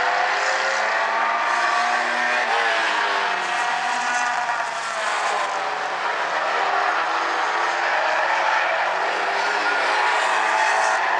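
A pack of small four-cylinder compact race cars running together on a paved oval. Several engine notes overlap, their pitch rising and falling as the cars accelerate and ease off through the turns.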